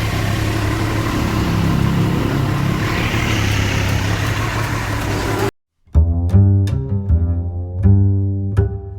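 Motorcycle engines running steadily with a low hum. About five and a half seconds in it cuts off abruptly, and music with plucked, deep string-bass notes takes over.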